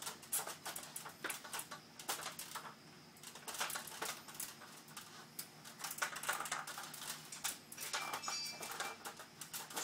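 Faint scattered creaks, taps and scuffs of a stepladder being climbed, shoes on the rungs and hands on the rails, with a short high squeak about eight seconds in.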